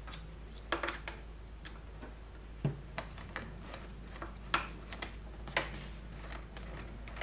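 A T-handle 5 mm Allen wrench clicking on small cap screws as they are backed out of a plastic cover on a motorcycle's top triple clamp: a string of light, irregular clicks.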